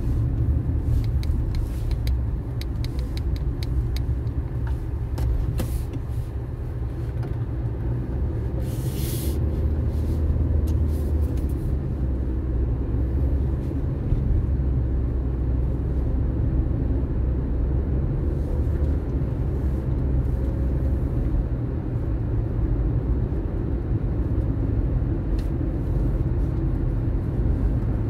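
Steady low road and engine rumble inside a moving car's cabin, with a few light clicks in the first few seconds and a brief hiss about nine seconds in.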